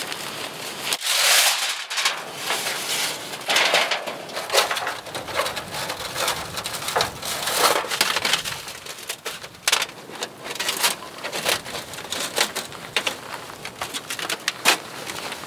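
Crunching and rustling while camping gear and a metal wood-stove chimney pipe are handled in snow, with many short, irregular clicks and knocks.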